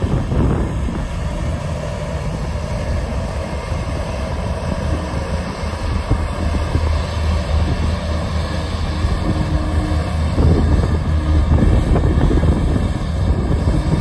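Diesel engines of crawler bulldozers, a Komatsu D85E among them, running steadily under load as they push soil: a low, continuous drone that grows a little louder about ten seconds in. Wind buffets the microphone.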